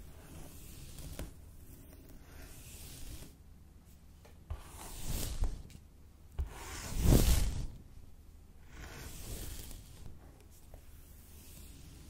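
A plastic comb and fingertips scratching and rustling through long straight hair at the scalp, in a few separate swishes. The loudest swell comes about seven seconds in.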